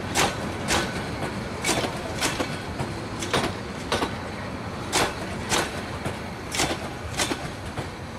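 Bangladesh Railway intercity passenger coaches rolling past close by, their wheels clacking over a rail joint in pairs of beats, one pair about every second and a half, over a steady rumble of the running gear.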